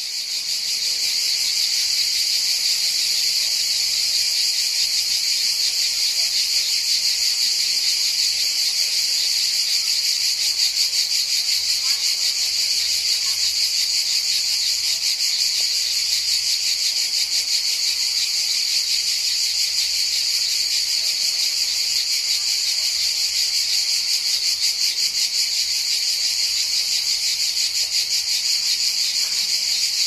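Cicadas buzzing in an unbroken, high-pitched drone with a fast pulsing texture, swelling up over the first second and then holding steady.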